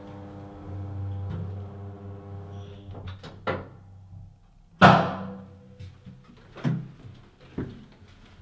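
Lift arriving: a steady hum stops about three seconds in, then a few clicks and one loud thunk of the lift halting and its doors opening, followed by a couple of footsteps.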